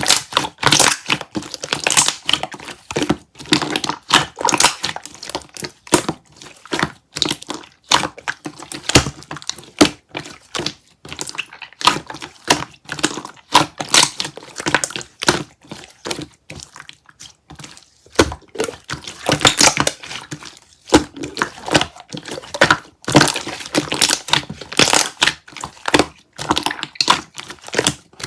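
Pink slime being kneaded and mixed by hand: a dense, irregular run of crackling and popping clicks with wet squishes, thinning for a moment about two thirds of the way through.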